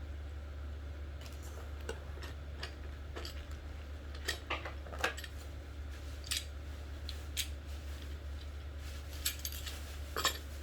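Small metal parts being handled, making scattered light metallic clicks and clinks, a few louder ones about four, five and ten seconds in, over a steady low hum.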